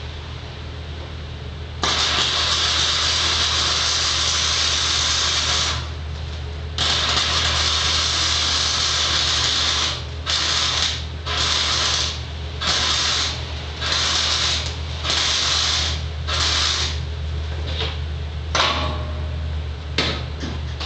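90-amp flux-core arc welder laying self-shielded welds on light-gauge steel studs: the arc crackles and hisses in two longer beads of about four and three seconds, then a run of short stitch welds about a second apart, with a few brief ones near the end. A steady low hum lies underneath.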